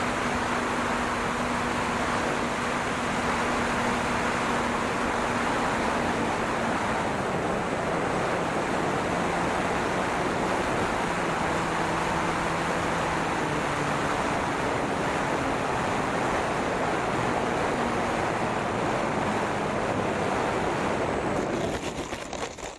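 Wind rushing over the onboard microphone of an electric E-flite P-47 model plane in flight, with the hum of its electric motor and propeller stepping down in pitch as the throttle comes back for landing. The sound falls away near the end as the plane settles on the grass.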